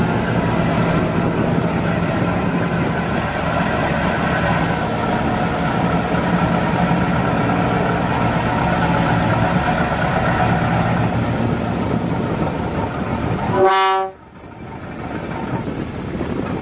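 Boat engine running steadily with churning water. About fourteen seconds in, a brief, loud horn-like tone sounds, and the sound then drops off sharply.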